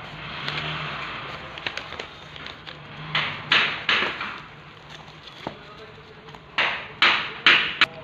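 Paper, cardboard and plastic packaging rustling and crinkling as a parcel is unpacked by hand, with a few sharp, louder crinkles about three and a half seconds in and again near the end.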